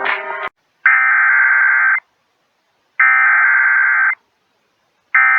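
Radio station audio cuts off, then the Emergency Alert System SAME header: three identical buzzy digital data bursts, each about a second long with about a second between them, the third starting near the end. They announce the severe thunderstorm warning that follows.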